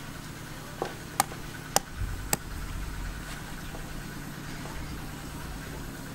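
Four sharp chops of a cleaver on a wooden chopping board, about half a second apart in the first two and a half seconds, over a steady low hum.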